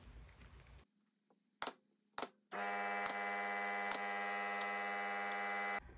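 Motor of a small handheld power tool running at a steady speed for about three seconds, a constant whine that starts and stops abruptly. Two sharp clicks come before it.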